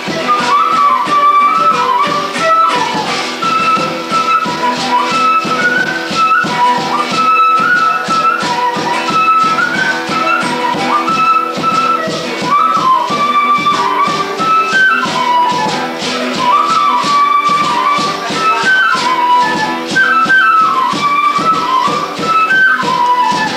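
Acoustic folk music played live: a flute carries a wavering melody over a strummed acoustic guitar and a hand drum keeping a steady beat.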